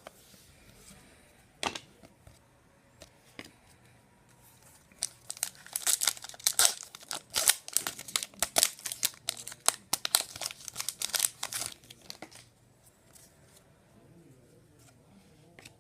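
A trading-card pack wrapper being torn open and crinkled, a dense crackling run of several seconds in the middle, with a few separate handling clicks before it.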